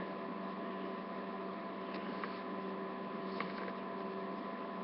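Steady electrical hum with a few faint ticks from plastic figure pieces being handled and pressed together.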